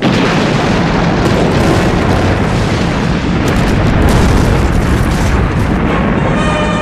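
Explosion sound effect: a sudden loud blast, then several seconds of continuous deep rumble as the refinery fireball burns. Orchestral music comes back in near the end.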